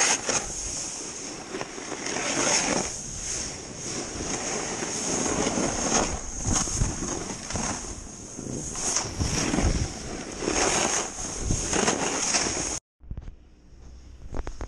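Snowboard sliding and carving over snow, the board's edge scraping in surges with each turn, mixed with wind rushing over the camera microphone. It cuts off abruptly near the end to a much quieter stretch.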